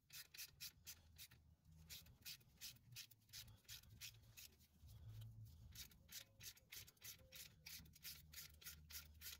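Ratchet clicking faintly in a quick, even series of ticks, several a second, as it turns bolts threaded into the rotor's jacking holes to press a rusted rear brake rotor off its hub.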